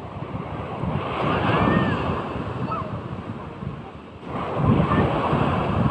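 Big sea waves breaking and washing in the surf, swelling twice: about a second in and again just past four seconds. Wind buffets the microphone.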